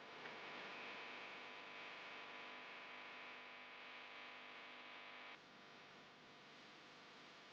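Near silence: a faint steady hum that drops away about five seconds in.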